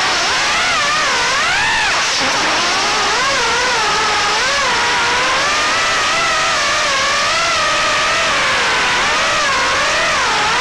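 Four 1105 5500kV brushless motors and props of an Armattan Tadpole 3-inch FPV quadcopter whining, the pitch swinging up and down quickly and continually with the throttle. Heard through the onboard camera's microphone.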